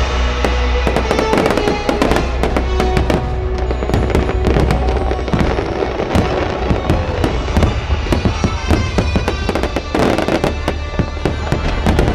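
Fireworks going off in rapid, dense bangs and crackles over music.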